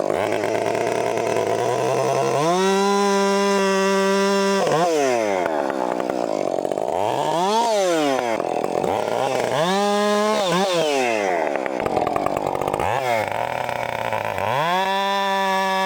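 Two-stroke chainsaw revved repeatedly. It rises from a low idle to full throttle about two seconds in, holds a steady high pitch for a couple of seconds, and drops back. Quick up-and-down blips follow, then another short hold, and near the end it revs up and holds full throttle again.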